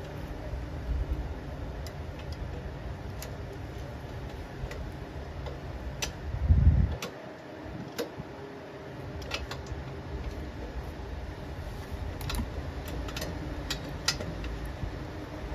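Scattered light clicks and taps as a flux-core welding gun is set against the sheet-metal chute, over a steady low hum, with one low thump about six and a half seconds in.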